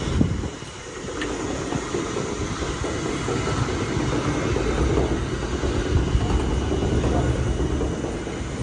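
Heavy processing machinery running with a loud, steady rumble and a dense rattle.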